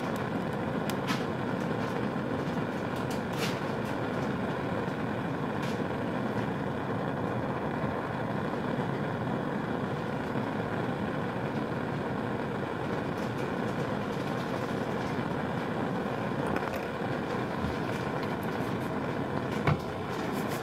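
Bunsen burner gas flame burning with a steady rushing noise, with a few faint ticks and one sharper click near the end as the inoculating loop and plates are handled.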